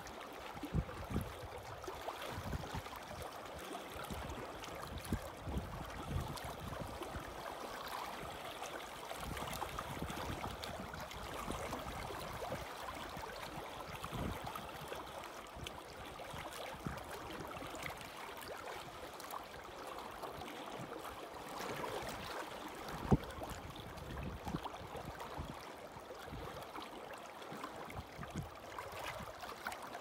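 Small waves lapping and gurgling against shoreline rocks in a steady wash, with occasional soft low thumps and one sharper knock about three quarters of the way through.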